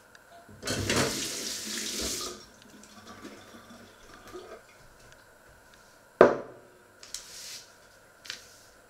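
Kitchen tap running into a steel sink for about a second and a half, then a sharp knock about six seconds in, followed by a few lighter clatters.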